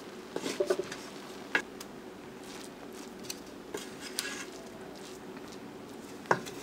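Wooden rice paddle stirring and scraping through cooked rice and split peas in a rice cooker's metal inner pot: scattered soft scrapes and taps against the pot, with a sharper knock near the end.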